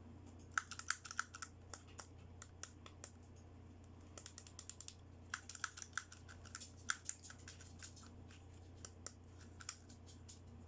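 Small plastic toy accessories being handled and unpacked: runs of light, quick clicks and taps, with a sparser few near the end, over a faint steady hum.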